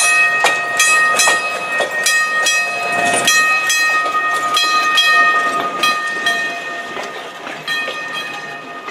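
A rail vehicle running on track: several steady high-pitched tones held over regular clicking of wheels over rail joints, about two to three clicks a second. The tones fade away near the end while the clicking goes on.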